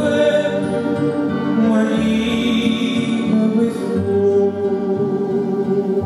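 A man singing a slow song into a microphone with grand piano accompaniment, holding a long note near the end.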